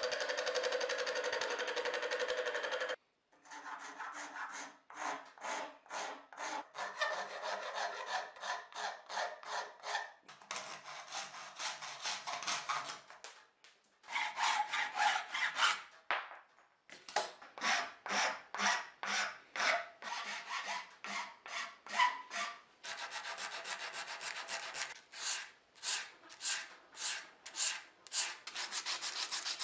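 A wooden hammer handle is briefly scraped as it spins on a wood lathe. It is then filed and sanded by hand in steady back-and-forth scratchy strokes, about two a second, with a couple of short pauses.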